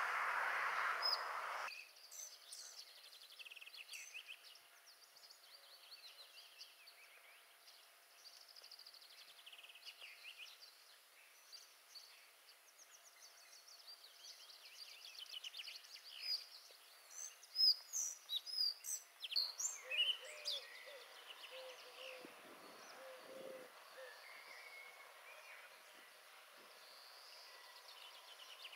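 Several songbirds singing and calling: thin high chirps and whistles and fast trills, loudest in a run of sharp chirps a little past the middle. A rush of wind noise on the microphone opens it and cuts off suddenly in the first two seconds.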